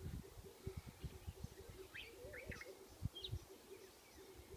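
Birds chirping: a few short, high chirps about halfway through and near the end, faint against low bumps of wind or handling on the microphone.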